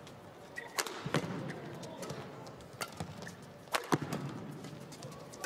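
Badminton rackets striking the shuttlecock during a doubles rally: about five sharp, separate hits, a second or so apart.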